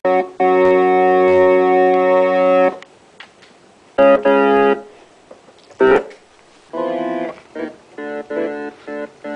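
Electronic keyboard sounding several notes at once as a border collie puppy presses the keys. A long held chord of about two seconds comes first, then shorter chords and stabs that cut off abruptly, with a sharp knock about two-thirds through.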